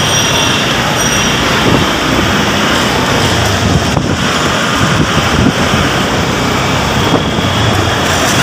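Traffic and road noise heard from a moving vehicle in city traffic, with wind rushing over the microphone: a steady, loud mix of engine, tyre and wind noise.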